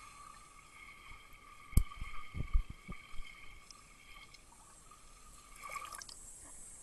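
Pool water splashing and gurgling around a hand-held camera as it plunges under the surface, with a burst of low thuds about two seconds in and a smaller splash near the end as it comes back up. A faint steady high whine runs underneath.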